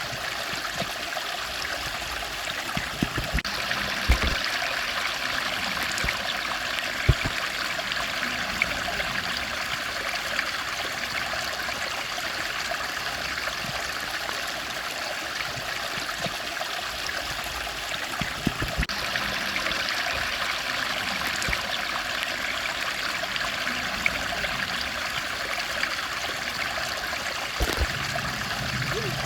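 Steady rushing of a flowing stream, with a few short low thumps now and then.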